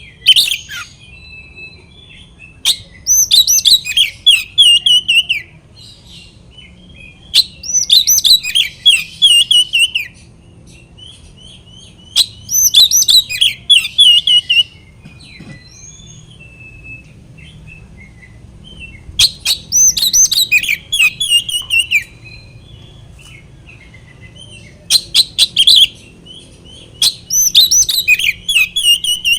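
Oriental magpie-robin (kacer) singing loudly in repeated bursts of rapid, varied whistled phrases, each a few seconds long, with softer chips in between. This is the agitated, full song used as a lure to provoke rival males into singing.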